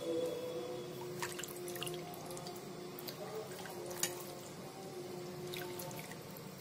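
A metal ladle scooping meat broth and pouring it over stuffed cabbage rolls in a pot. Liquid drips and splashes, with a few light clinks of the ladle.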